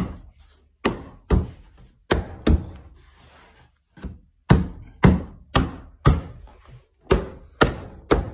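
Open hand slapping down on a threshold bar again and again, sharp thuds about two a second with a short pause about three seconds in. This drives the bar's fixing screws down into their holes in the floor to seat the bar.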